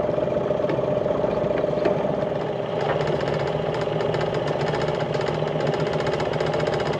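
Boat outboard motor running steadily.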